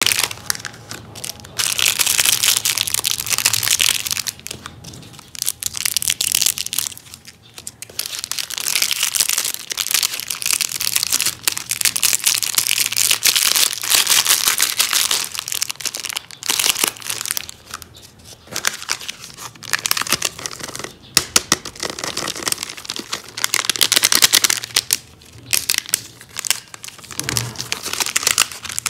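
Plastic chocolate-bar wrappers crinkled and crumpled between the hands, in bursts of a few seconds with short pauses between them.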